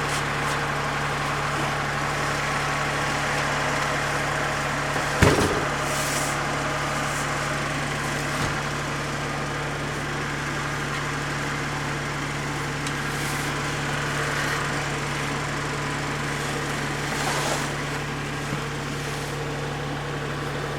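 Steady machine hum with a constant low drone, and a single sharp knock about five seconds in.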